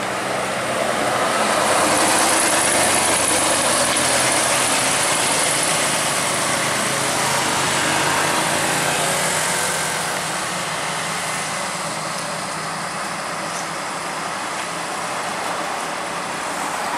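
Diesel truck engine labouring up a steep grade, mixed with passing motorcycles. It is a loud, dense engine-and-road noise that swells about two seconds in and eases off a little after ten seconds.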